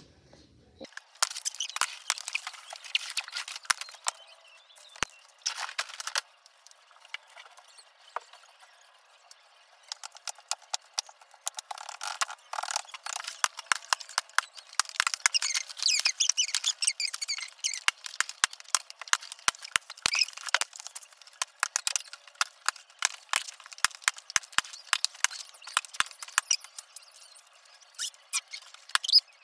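Thin plastic water bottle crinkling and crackling as it is handled and squeezed, a dense run of sharp clicks with a few squeaks, quieter for a few seconds early on before getting busy again.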